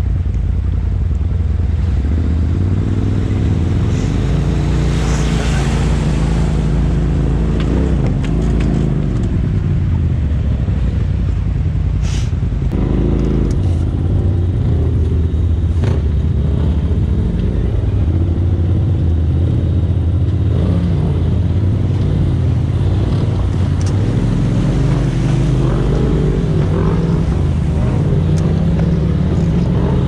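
Polaris RZR side-by-side engine running at low speed over creek rocks, its pitch rising and falling as the throttle comes on and off, with a few short knocks along the way.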